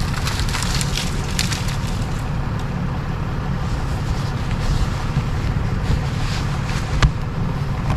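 Tow truck engine running steadily during a winch recovery, with scattered crackles and one sharp click about seven seconds in.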